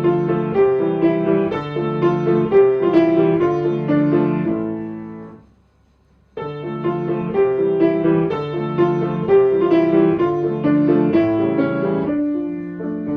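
Piano playing a walking-pace tune. The tune dies away about five seconds in and starts again about a second later: the stop-and-go cue for walkers to halt and then move on.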